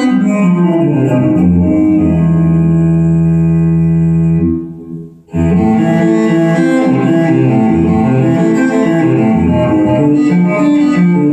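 Recorded music with string instruments played through Technics SB-6000A loudspeakers for a sound test: a long held low note, a short break about five seconds in, then a run of moving notes.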